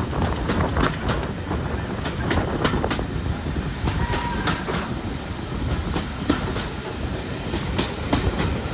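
Passenger train running along the track: a steady low rumble with many sharp clicks as the wheels pass over rail joints.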